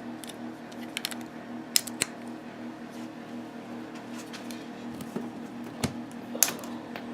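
Scattered light clicks and taps of a phone charger's plastic wall adapter and USB cable being handled, over a steady low hum.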